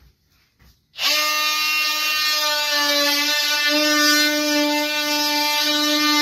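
Oscillating multi-tool switching on about a second in and running with a steady, high buzz as its blade cuts into the wooden frame of a vanity cabinet.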